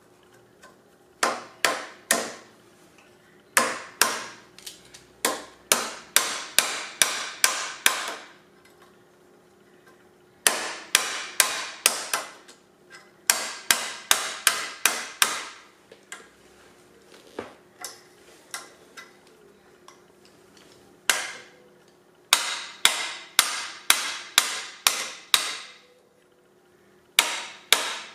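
Metal-on-metal tapping as a new bottom bearing is gently tapped into a vacuum cleaner's caster housing with locking pliers: runs of sharp, ringing taps about two a second, broken by short pauses.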